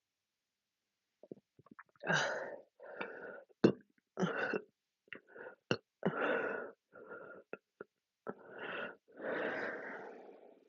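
A person burping again and again: about half a dozen burps of under a second each, with short sharp clicks between them, after chugging canned drinks.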